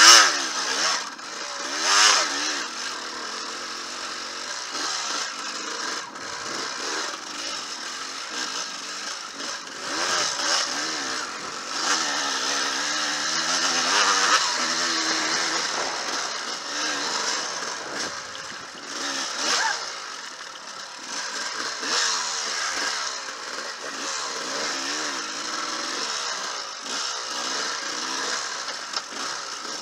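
Enduro dirt bike engine ridden hard on a twisty trail, its revs rising and falling again and again as the throttle is blipped and rolled off, with the loudest bursts right at the start and about two seconds in.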